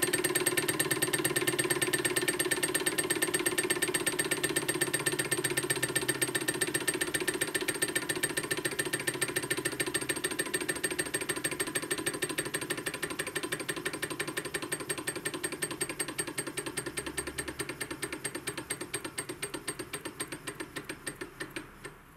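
Small two-glass-syringe Stirling engine running, its pistons and linkage making a rapid, even ticking clatter. The ticks slow and fade as the flywheel winds down, ending in a few spaced ticks near the end.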